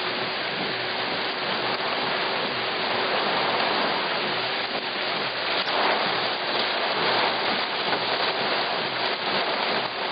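Heavy thunderstorm downpour mixed with 1 cm hail: a loud, dense, steady hiss of rain with scattered sharper hits.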